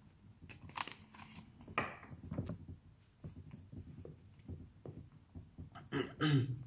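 Soft paper rustling and small handling clicks as a textbook page is turned, with a brief low vocal sound near the end.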